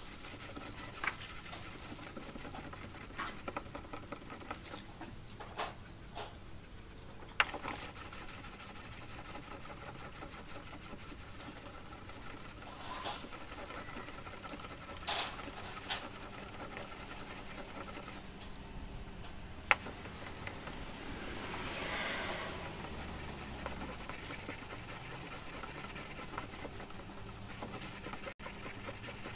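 A small sanding block rubbed back and forth by hand over a car's wet painted fender, a soft repeated scratching as clear-coat runs are sanded flat. A few sharp clicks stand out, the loudest about seven and twenty seconds in.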